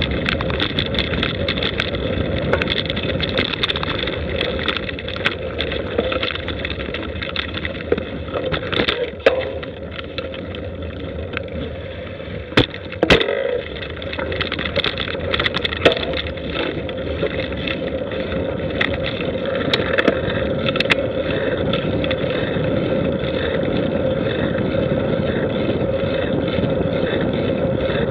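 Steady rush of wind on a bike-mounted camera's microphone with the tyres rolling over a dirt track, and a few sharp knocks from bumps in the middle part.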